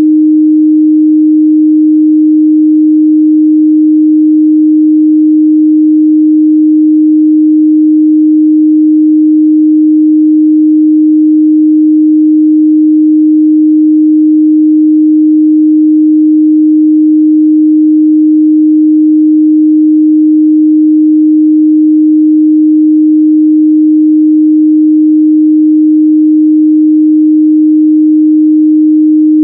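A steady, loud 308 Hz sine-wave test tone, one unchanging pitch, used to check the mid-range response of speakers and headphones.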